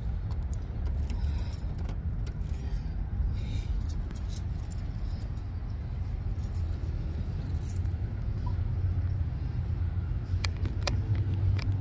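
Wind buffeting a phone's microphone, a steady low rumble, with scattered light clicks and jingles in the first few seconds and again near the end.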